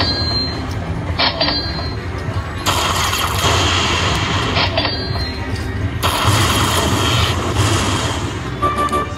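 Aristocrat Lightning Link slot machine's bonus sound effects: short electric zaps, then two long crackling thunder-like bursts about three and six seconds in, as lightning strikes the bonus coins and the win total counts up.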